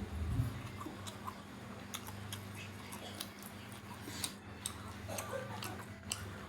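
Close-up eating sounds of a person chewing food: irregular wet mouth clicks and smacks, a few a second.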